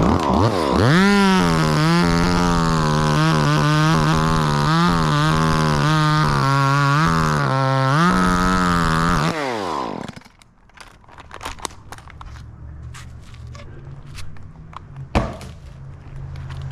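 Chainsaw revving up and cutting wood at full throttle, its pitch dipping again and again as the chain bites. It falls off and stops about ten seconds in. After that there is a faint low engine hum, a few clicks and one sharp knock.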